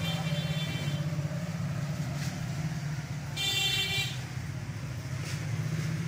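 Street traffic with a steady low engine rumble. A high-pitched vehicle horn sounds for about a second at the start, and again, louder and shorter, about three and a half seconds in.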